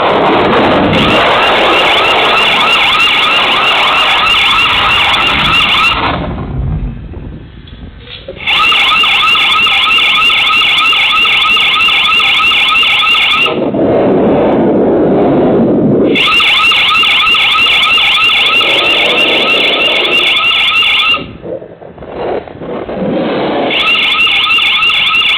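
Electronic security alarm sounding loudly in warbling, repeating bursts of about five seconds with short breaks between them. A lower-pitched sound fills the gaps.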